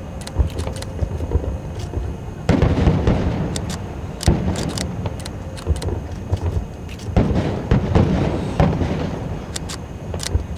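Fireworks display: a steady crackle of sharp bangs and pops over a low rumble, with two denser, louder volleys about two and a half and seven seconds in.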